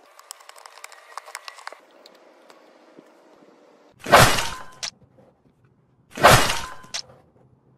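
Plastic MathLink Cubes clicking and rattling in quick small knocks for the first couple of seconds. Then two loud sound-effect bursts, each under a second long, about two seconds apart.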